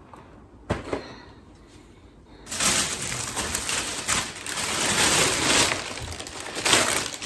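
Plastic grocery packaging being handled: a single knock, then a long stretch of loud crinkling and rustling.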